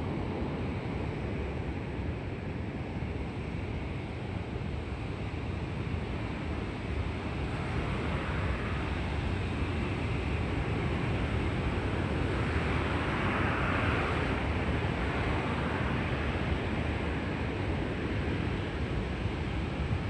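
Heavy storm surf raised by a typhoon, breaking and washing up a stony shore: a continuous rush of breaking waves and foam, swelling a little over halfway through as a big wave breaks.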